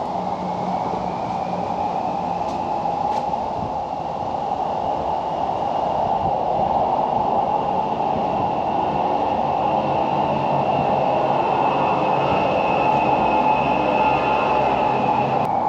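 A vehicle running steadily: a constant rumbling noise with a low hum and a faint high whine that slowly rises in pitch.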